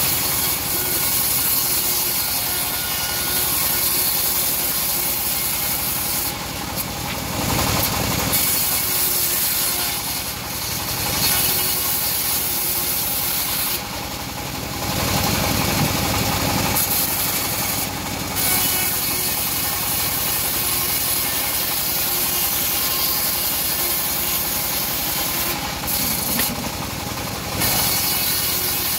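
Homemade engine-driven bandsaw sawmill ripping teak, the blade giving a steady rasping hiss through the wood over the running machine. It eases off briefly a few times between cuts.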